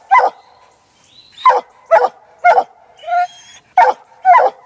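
Six-month-old black and tan coonhound barking treed at the base of a tree, head up. About six short, sharp barks come through, with one longer drawn-out bark about three seconds in.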